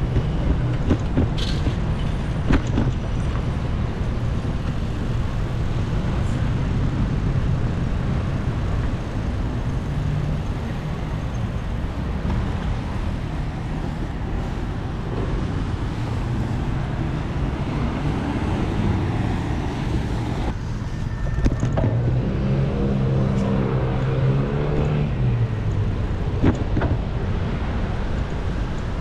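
Traffic and road noise heard from a bicycle: a steady rumble of wind and tyres, strongest in the low end. Near the end a motor vehicle's engine drones close by for a few seconds.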